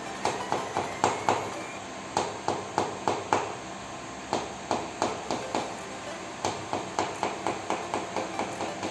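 Percussive massage strikes on the body: a series of sharp knocks at about three to four a second, in runs of several with short breaks between.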